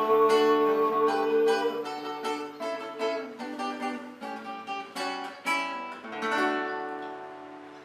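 Nylon-string acoustic guitar playing the closing chords of a folia de reis rhythm in D major, a picked bass note followed by fingers plucked together, then a last chord left ringing and fading out near the end.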